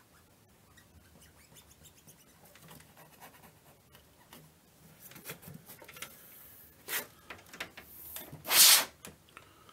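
Plastic light-diffusing sheet from an LED TV backlight being slid and lifted out by hand, rubbing and scraping against the panel and frame. The scraping is faint at first, grows louder after about five seconds, and ends in a loud half-second rasp near the end.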